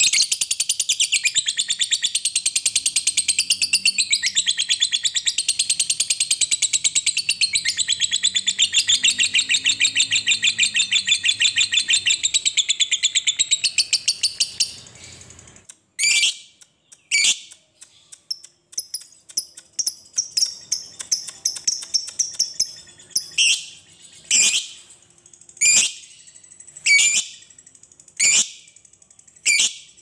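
Lovebird in its long 'ngekek' song: a rapid, high-pitched chattering trill held without a break for about fifteen seconds. It then stops and gives way to single sharp chirps about once a second, with softer ticking notes between them.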